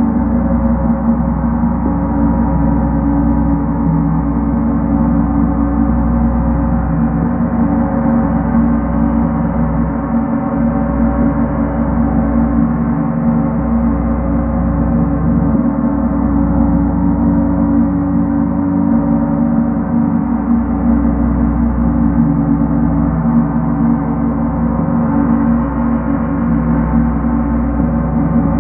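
Large gong played continuously with felt-headed mallets, a steady sustained drone of many layered deep tones held at an even level, with no separate strikes standing out.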